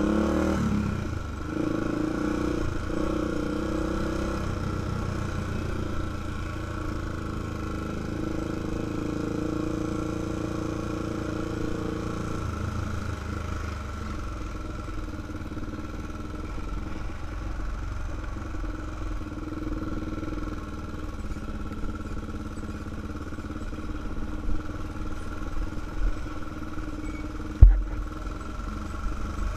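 Engine of a 2005 Honda 400EX ATV, a single-cylinder four-stroke, running under way on a rocky dirt trail. It revs harder in the first few seconds, then runs more steadily. Small knocks come late on, and there is a sharp loud thump near the end.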